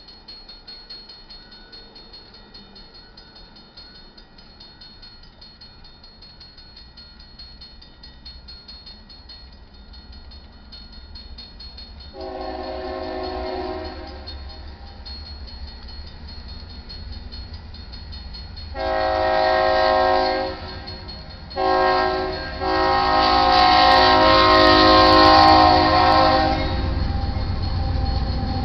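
Union Pacific GE AC4460CW locomotive's horn sounding the grade-crossing signal, long, long, short, long, the last blast the loudest, over a grade-crossing bell ringing steadily. The low rumble of the locomotive's engine grows louder near the end as it reaches the crossing.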